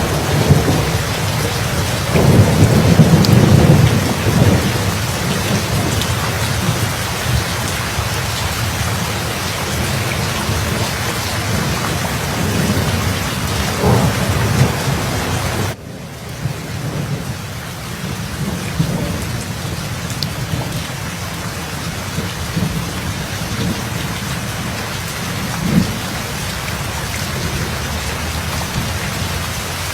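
Steady rain falling with low rolls of thunder, the loudest rumble about two to four seconds in and another just before halfway. Just before halfway the sound drops abruptly, then the rain carries on quieter with fainter rumbles.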